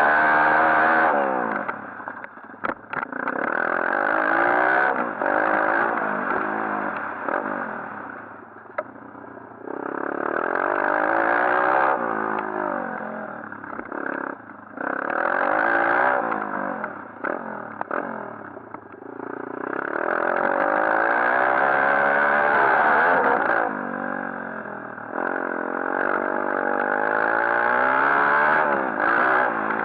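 A 140cc pit bike engine revving hard in repeated bursts as the throttle is opened and shut. The pitch climbs through each burst and drops off in the quieter gaps between, several times over.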